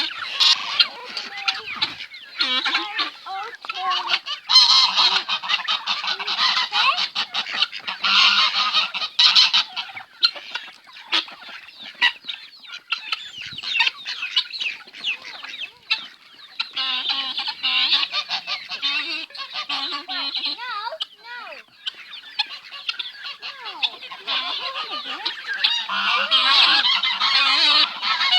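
A flock of domestic geese honking, many calls overlapping in a continuous din that swells and eases in bouts.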